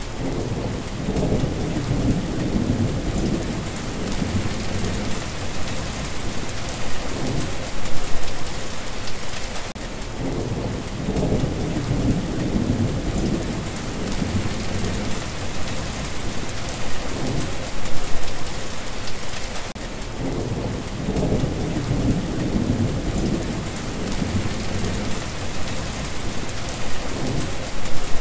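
Steady rain falling, with thunder rumbling low three times, each rumble lasting several seconds, about ten seconds apart.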